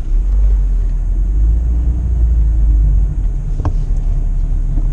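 Low, steady rumble of a car driving, heard from inside the cabin, with a single click about three and a half seconds in.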